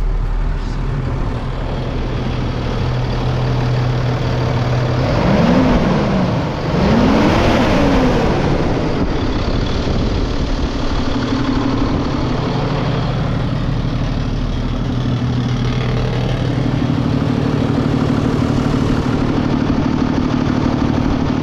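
Cummins diesel engine in a 2003 Sterling dump truck idling. It is revved briefly twice, about five and seven seconds in, then settles back to a steady idle.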